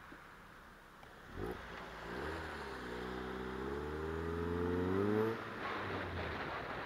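Mazda MX-5's four-cylinder engine pulling away and accelerating, its note climbing steadily in pitch for about three seconds, then dropping off suddenly as the throttle is lifted. Wind and road noise underneath.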